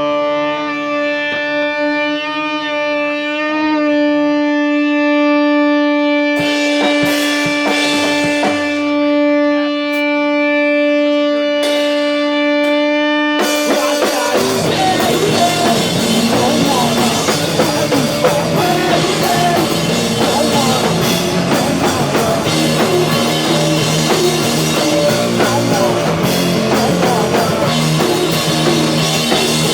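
Live rock band playing: a long sustained guitar tone rings for about thirteen seconds with cymbal washes, then the full band crashes in with drums and guitars.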